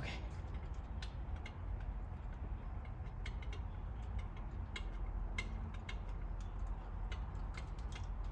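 Hand ratchet clicking in short, irregular strokes as bolts on a lower intake plenum manifold are run down snug, over a steady low hum.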